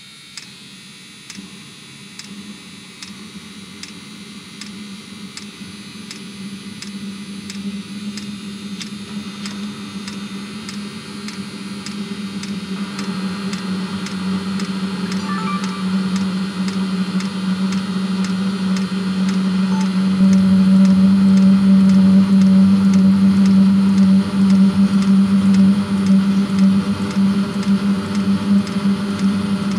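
Diesel-fired auxiliary coolant heater of a 2016 Mercedes Sprinter running like a mini jet engine: a steady whoosh and hum that builds over the first twenty seconds and steps up about twenty seconds in, as the heater comes up to full burn. Its fuel pump clicks in a regular tick, about two a second.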